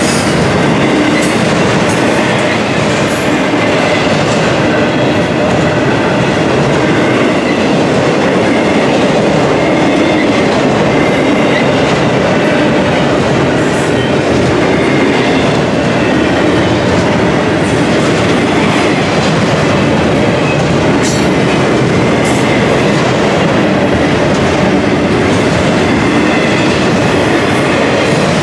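Double-stack intermodal container well cars rolling past, a loud, steady rumble of steel wheels on rail with occasional clicks.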